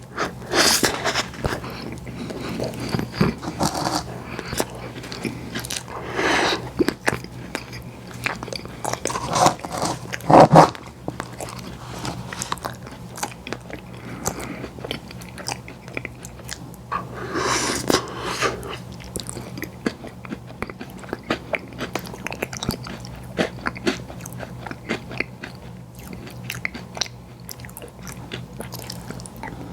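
Close-miked eating of ice cream and cookie desserts: big bites with crunching, then wet, sticky chewing and mouth clicks. The loudest bites come about 1, 6, 10 and 17 seconds in.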